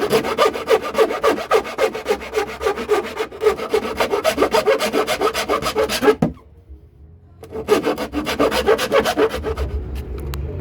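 A hand-held cutting tool enlarging a speaker hole, working its edge in quick, even strokes; it stops about six seconds in, then cuts again for about two seconds.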